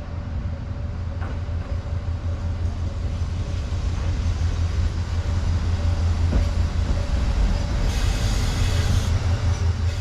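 Diesel railcar running, a heavy low engine rumble with a steady whine that grows gradually louder, and a brief hiss about eight seconds in.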